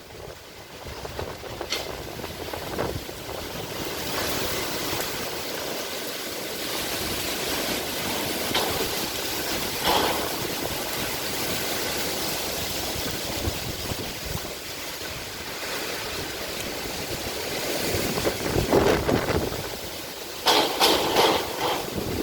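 Storm noise: wind and rain making a steady rushing sound that swells in a strong gust near the end, with a few sharp knocks or rattles just after it.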